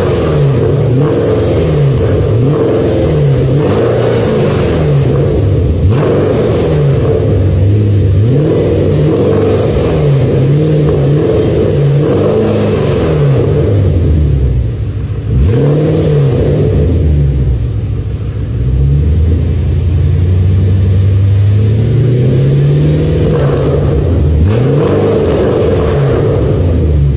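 2006 Audi RS4 (B7) 4.2-litre V8 through a de-catted, straight-piped stainless steel exhaust, revved again and again, its pitch rising and falling every second or two, with one longer, slower climb about two-thirds of the way through. Sharp exhaust crackles and pops come as the revs drop.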